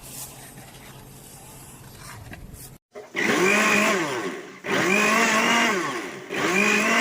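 A 300 W heavy-duty countertop blender's motor switched on in three short pulses, each whirring up in pitch, holding briefly, then winding down; the last pulse is cut off abruptly. Before the pulses there are about three seconds of low, steady background noise.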